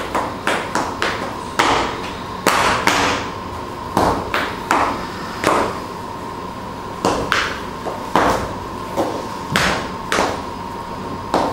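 A series of sharp, irregularly spaced taps and knocks, roughly two a second, some ringing briefly, over a steady high hum.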